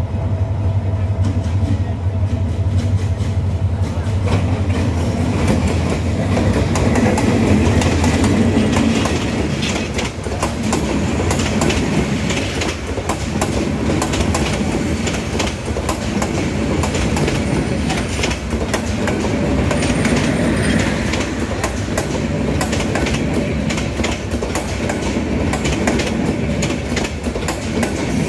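Passenger express train passing close by. First the steady low drone of its approaching diesel locomotive, then the coaches rolling past with a continuous rapid clatter of wheels over the rail joints.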